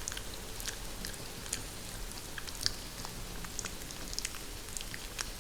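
Recorded rain falling on a greenhouse: a steady hiss of rain with many scattered sharp ticks.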